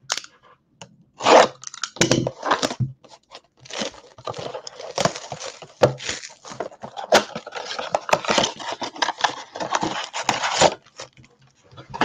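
A cardboard trading-card blaster box being torn open by hand and its foil-wrapped packs slid out: irregular tearing, scraping and crinkling. The sound is densest in the second half and stops shortly before the end.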